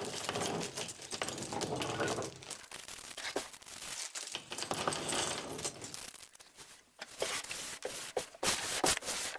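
Plastic bags of Lego pieces being crinkled and torn open, with scattered sharp clicks.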